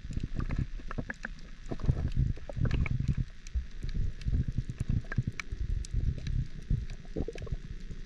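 Sea water sloshing and splashing irregularly, with scattered low knocks and bumps.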